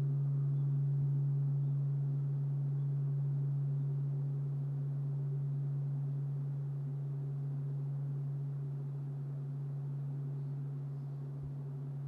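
Bronze Japanese temple bell (bonshō) humming as it dies away after a strike: one deep steady tone with a few fainter higher overtones, fading slowly with gentle swells and dips.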